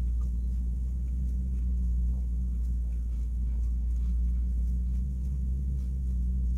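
A steady low hum in the room, with faint soft ticks of knitting needles working stitches.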